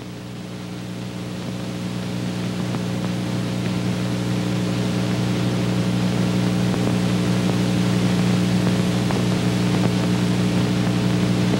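A steady low electrical hum with hiss, typical of an old optical film soundtrack. It grows louder over the first few seconds and then holds level.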